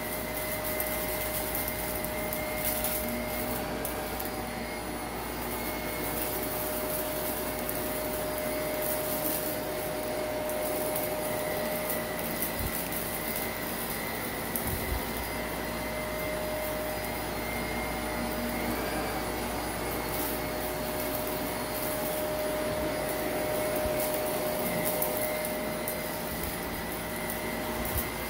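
Shark Navigator upright vacuum running steadily with a constant motor whine as it is pushed over a shag rug, with scattered light crackles of grit being picked up.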